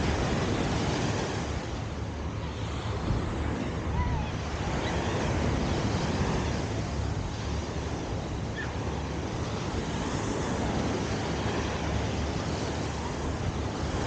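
Ocean surf washing onto a sandy beach: a steady rush of breaking waves that swells and eases every few seconds, with wind rumbling on the microphone.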